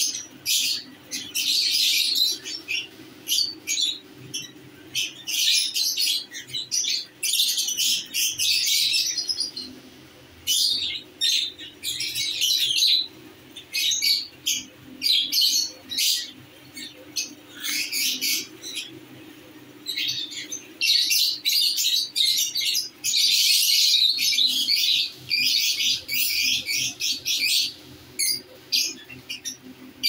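Many caged lovebirds chirping and squawking together, in repeated high-pitched bursts with short gaps between them.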